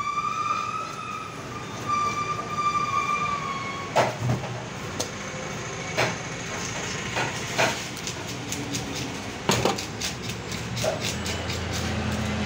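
A long, steady horn-like tone for roughly the first three and a half seconds, then sharp knocks and taps of a knife and fish on a wooden chopping block. They come a second or so apart at first and turn into a quick run of taps near the end.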